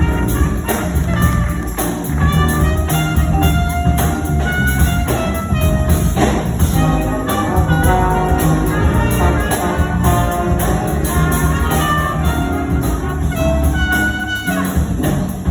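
Live jazz big band playing, with trumpets and trombones carrying moving horn lines over a steady bass and drums.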